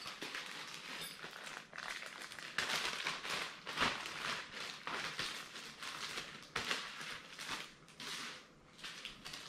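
Clear plastic parts bag rustling and crinkling as it is handled, with irregular crackles throughout.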